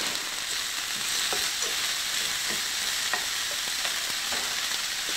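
Chopped vegetables and corn sizzling in a stainless steel frying pan over a high flame, stirred with a slotted spoon that scrapes and taps against the pan every second or so.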